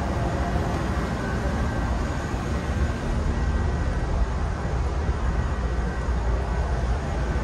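Amtrak Capitol Corridor passenger train in motion: a steady, unbroken low rumble.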